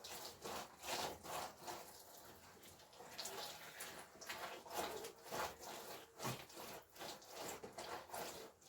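Wet soil and water being worked by hand: irregular splashes and slaps of mud.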